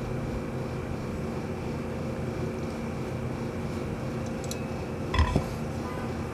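Steady machine hum in a workshop, with a short metallic clink that rings briefly about five seconds in.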